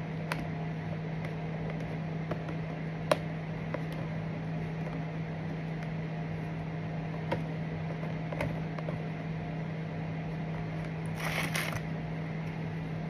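Steady low hum from a kitchen appliance, under a few sharp light clicks and taps of kitchen utensils and containers while a layered dessert is assembled, with a brief rustle about eleven seconds in.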